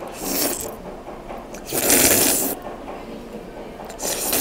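Noodles slurped in three bursts, the middle one the loudest.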